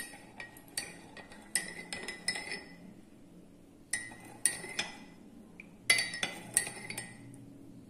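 Metal teaspoon stirring honey into tea in a ceramic cup, clinking against the inside of the cup in irregular runs of light taps, each with a short ring.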